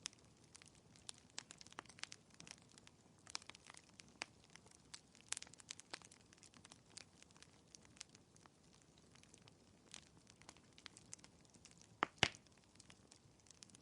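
Fireplace crackling faintly: irregular small pops and snaps of burning wood, with two louder pops close together near the end.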